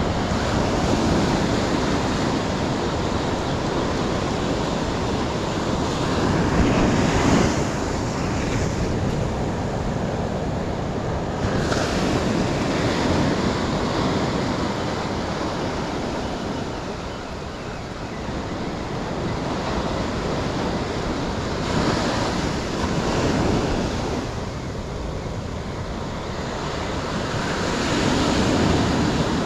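Ocean surf breaking close by and washing up the sand, a steady rush that swells and fades as each wave comes in.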